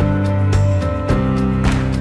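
Background music: a song with sustained notes and a steady beat.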